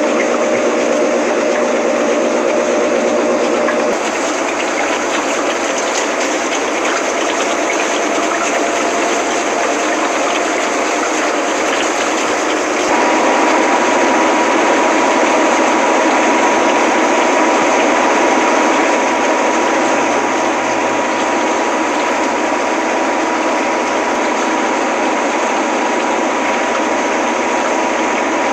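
Washing machine running: a steady rushing noise with a motor hum that shifts in pitch about four seconds in. About halfway through, a steady higher whine sets in.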